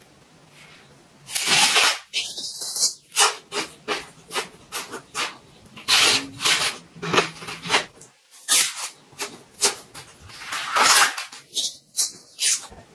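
Raw leek being bitten and chewed: a run of crisp, uneven crunches, with the loudest ones a little over a second in, around six seconds in, and about eleven seconds in.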